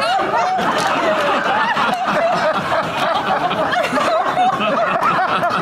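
Audience laughing and chuckling, with voices talking over it.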